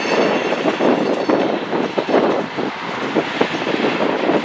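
Freight train cars (tank cars and covered hoppers) rolling past: steel wheels running on the rails with a steady rumble and irregular clacks over the joints.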